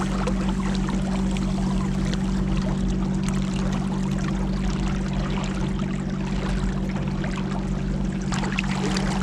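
Motorboat under way, its engine running at a steady pitch with water rushing along the hull.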